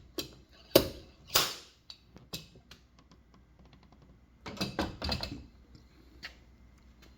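Tools tapping and knocking on metal during paintless dent repair: a few separate sharp knocks, then a quick rattling cluster of taps about four and a half seconds in, and one last click.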